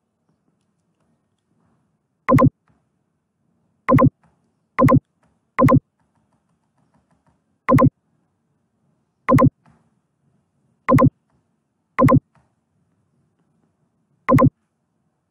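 Nine short, identical electronic beeps, each a brief pitched tone, coming irregularly one to two seconds apart.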